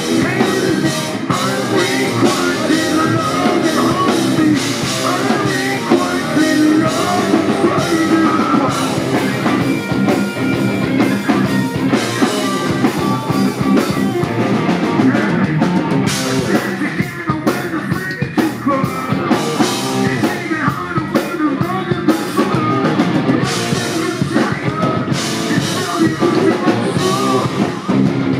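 Rock band playing live at full volume: electric guitars, bass guitar and drum kit, with singing over parts of it.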